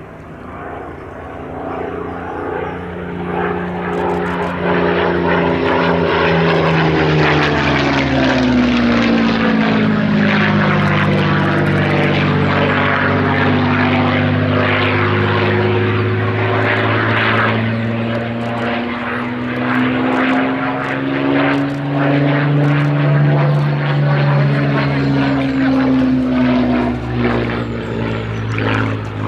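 A Supermarine Spitfire's Rolls-Royce Merlin V12 engine running during a display pass. It grows louder over the first few seconds, then holds a steady loud note whose pitch falls, rises and falls again as the aircraft passes and manoeuvres.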